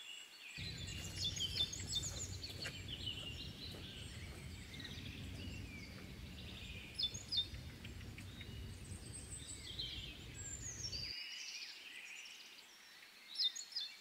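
Small birds chirping and trilling in woodland, over a low steady outdoor rumble that cuts off suddenly near the end; a few sharper calls come about halfway through and again just before the end.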